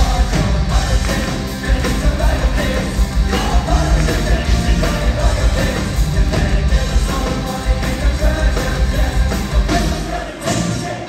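Live heavy metal band playing loud, with drums, distorted guitar, bass and keytar and voices singing, heard from the audience in a concert hall. The music drops briefly near the end.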